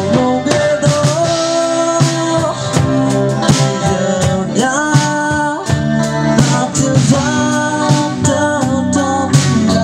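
Live band music: a man sings a melody of long held notes into a microphone over electric guitar and a drum kit keeping a steady beat.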